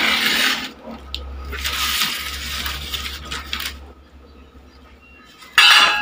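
Cardboard and foam packing rustling and scraping as metal frame tubes are pulled out of a box, with light metallic clinks and a louder clatter near the end.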